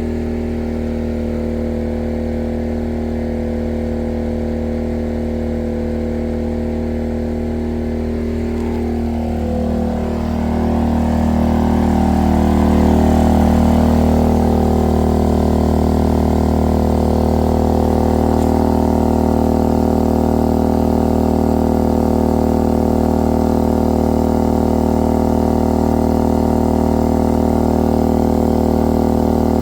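Maxpeedingrods MXR4000GT inverter generator's single-cylinder four-stroke engine running steadily under heavy load from two RV air conditioners and a refrigerator, about 2,800 watts. About ten seconds in its pitch shifts and it gets louder, then it holds steady at the higher speed.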